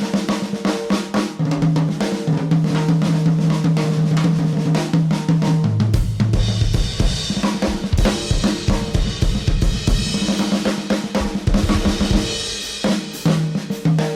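Live band playing an instrumental passage: a drum kit with snare, bass drum, hi-hat and cymbals playing a busy rhythm over held bass notes that change every few seconds.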